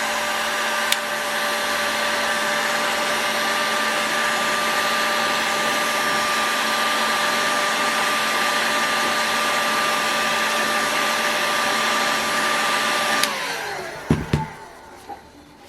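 Heat gun blowing steadily with a motor whine, switched off about 13 seconds in and winding down, followed by a few light knocks.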